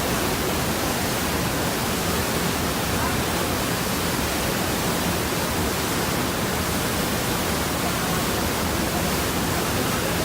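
Steady, loud rush of a large waterfall, the Rhine Falls, heard at close range.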